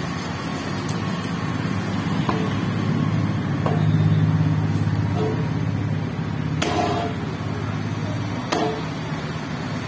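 A motor vehicle's engine hum that swells and fades about three to five seconds in, with a few sharp clicks and scrapes from a knife cutting into a parrotfish on a wooden block, the clearest two in the second half.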